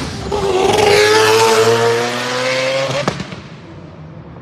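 A sports car accelerating hard past on full throttle, its engine note rising steadily. There is a sharp pop about three seconds in, then the sound fades as the car goes away.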